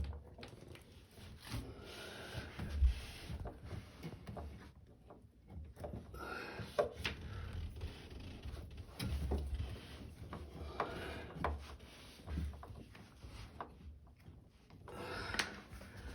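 Irregular knocks, scrapes and rubbing of parts being handled while a screw is fitted into the washing machine's motor assembly, with a few louder low thumps.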